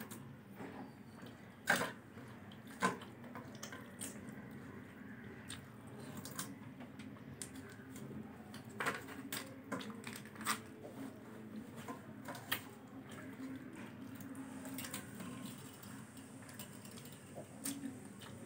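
A person eating fried chicken: quiet chewing and wet mouth sounds, with scattered small clicks and two sharper clicks near the start, over a faint steady hum.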